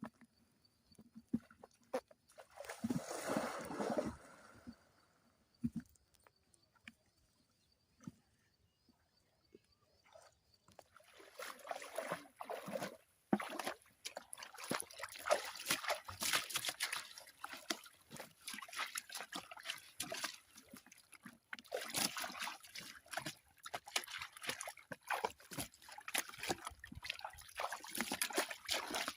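Hands sloshing and splashing through shallow muddy water, in irregular splashes and trickles; a brief splash a few seconds in, then steady busy splashing from about a third of the way through.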